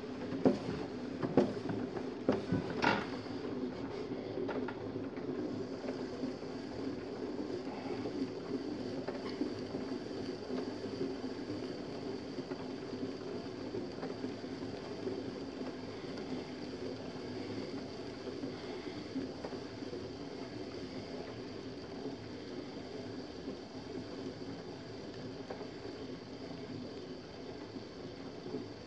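Electric potter's wheel running with a steady hum while a small metal trimming tool scrapes shavings off the foot of a leather-hard clay pot. A few sharp knocks come in the first three seconds.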